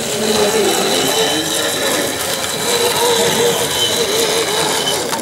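Model railway locomotive's small electric motor and gears whirring as it runs along the track, a wavering mid-pitched hum with a thin steady high whine above it.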